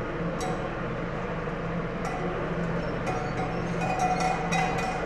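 Metal clinking and rattling from the hitch chain and yoke hardware as a yoked pair of oxen drags a stoneboat loaded with 4,400 pounds of concrete blocks; the clinks come thicker from about three seconds in. A low steady hum runs underneath.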